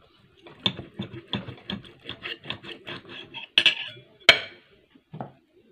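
Steak knife sawing through a steak on a plate in quick back-and-forth strokes, then a few sharp clinks of cutlery against the plate.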